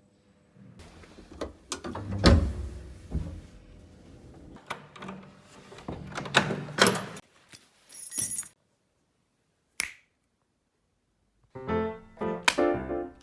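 Scattered knocks, clunks and clicks of things being handled, with a short hiss near the middle; after a few seconds of silence, background music with quick piano-like notes starts near the end.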